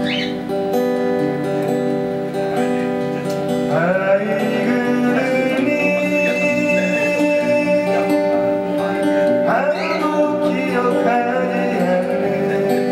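A man singing while playing an acoustic guitar, with sung phrases coming in around four seconds and again around ten seconds over the ringing guitar chords.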